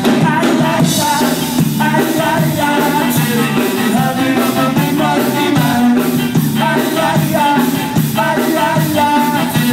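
Live ska band playing: a singer over electric guitars, saxophone and drums.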